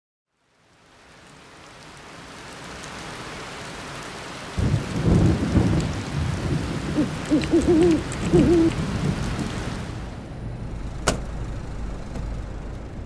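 Night ambience sound design: a rain-like hiss fades in, then a heavy low rumble like thunder comes in about four and a half seconds in, with wavering hoot-like tones over it and a single sharp click near the end.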